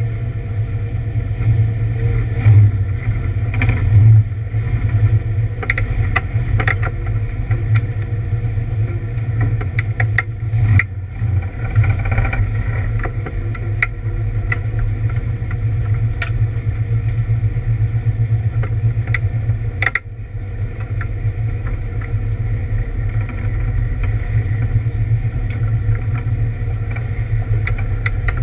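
Camaro race car's engine running at a fairly steady drone through laps, with scattered clicks and rattles and a couple of brief dips in level; the car is running with a misfire.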